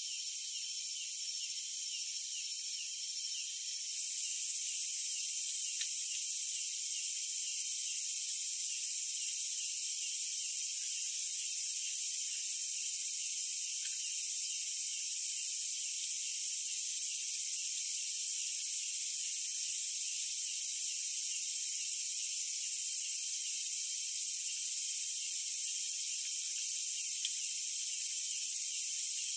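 Chorus of night insects: a steady, high-pitched trilling with a fast pulsing note running through it. One of the high tones drops out about four seconds in.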